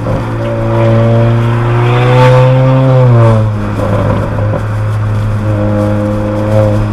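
Honda Accord 1.5-litre turbocharged four-cylinder with a downpipe and front pipe and the resonator and muffler deleted, heard from inside the closed cabin. The engine note climbs for about two seconds, drops away sharply around three seconds in, then settles to a steady, lower note.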